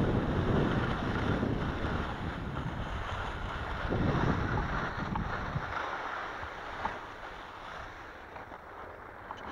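Skis sliding and scraping over crunchy, hard-packed snow, with wind buffeting the microphone. The sliding noise dies down after about five and a half seconds as the skier slows.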